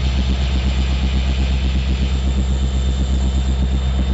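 Norfolk Southern diesel-electric locomotives' engines running, a steady low rumble with an even throb.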